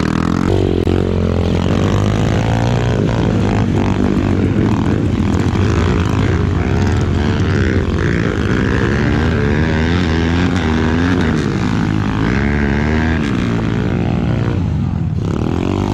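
Off-road trail motorcycle engines running and revving, their pitch rising and falling again and again.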